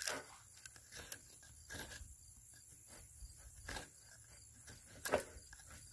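Knife blade scraping along a pine board, shaving off fine tinder in a few irregular strokes, the loudest about five seconds in.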